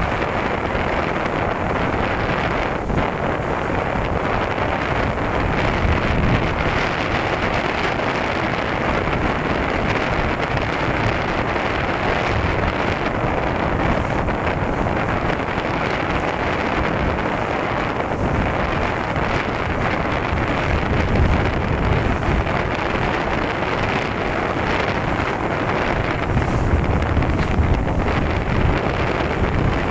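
Steady wind buffeting the microphone over rushing water and choppy waves, heard from a boat moving at speed, with gusts of low rumble.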